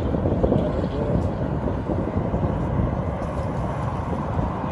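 Wind buffeting the microphone: a steady, dense low rumble with no clear pitch.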